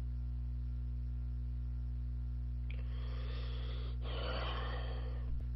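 Steady low electrical hum on the recording, with two long breaths, one right after the other, in the second half, drawn as the man holds a creepy face.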